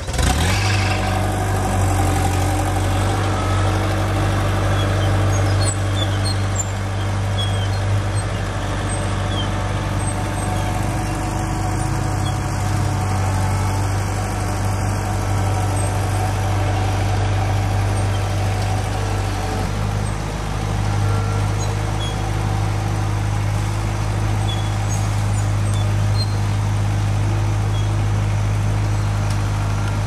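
Compact track loader's diesel engine running steadily while it slowly pulls a rope to pre-tension the pull line in a leaning oak. The engine note shifts slightly about twenty seconds in.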